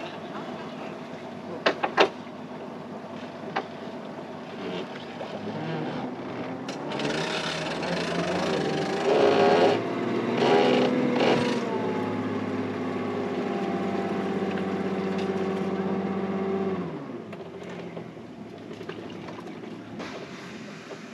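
Boat's outboard motor running near idle, a few sharp knocks about two seconds in; its pitch wavers for a few seconds, holds steady, then cuts off suddenly as the engine is shut down.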